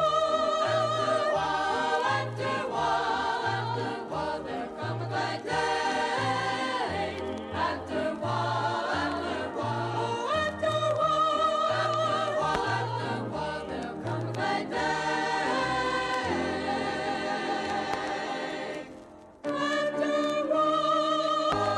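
Background music: a choir singing over instrumental backing with a steady bass pulse about twice a second. The music dips briefly near the end, then picks up again.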